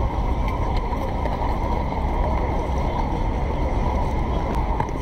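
Busy city-street ambience: a steady rumble of road traffic with a faint murmur of voices.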